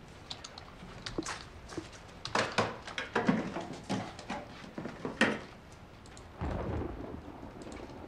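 Thunder in a rainstorm: a run of sharp, irregular cracks over a few seconds, then a deep low rumble near the end.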